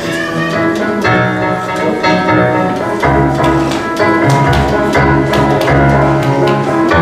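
Instrumental music with percussion and held chords that change about once a second.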